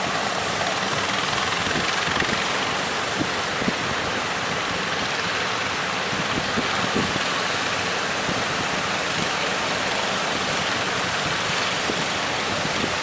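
Steady rushing noise of sea surf and strong wind, with a few faint knocks.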